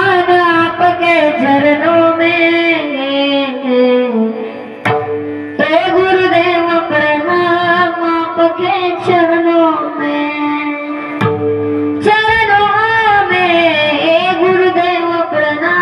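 Devotional singing: a long, wordless melodic vocal passage with instrumental accompaniment. It breaks briefly twice, leaving a held tone before resuming.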